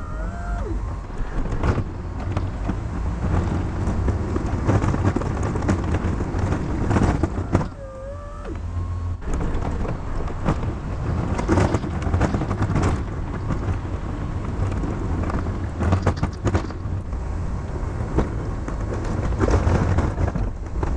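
Pickup truck engine running under load while plowing snow with a Snow Dogg plow, with scraping and knocks from the blade. Short whines slide in pitch near the start and again about eight seconds in.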